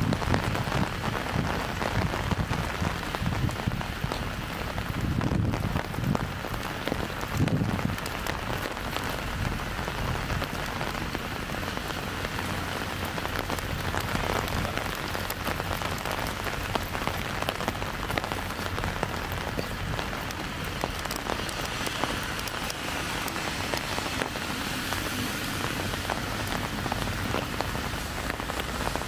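Steady light rain pattering on an umbrella, a dense spray of small drop ticks. A few low rumbles come through in the first several seconds.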